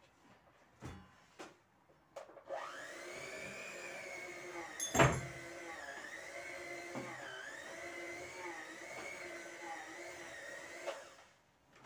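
Small electric motor of a household appliance running steadily for about eight seconds, its pitch wavering slightly, then switching off. A sharp knock sounds about two and a half seconds after it starts.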